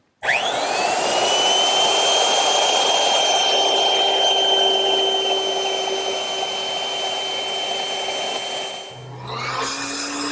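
Handheld router starting up with a rising whine, then running steadily as it cuts a decorative chamfer along the edge of a wooden frame. Near the end the router sound stops and a power miter saw motor starts up.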